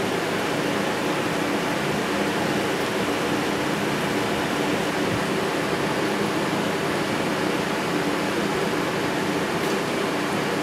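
Extraction fan running with a steady rushing noise and a faint low hum.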